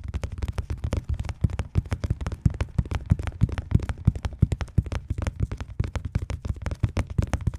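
Close-miked ASMR tapping and crackling: a dense, irregular run of sharp clicks and taps, several a second, each with a low thump.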